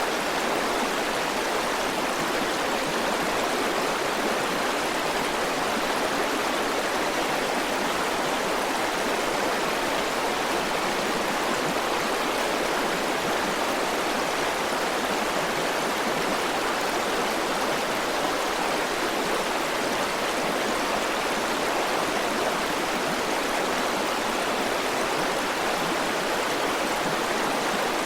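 River water rushing steadily over rocks, an even splashing hiss with no breaks or changes.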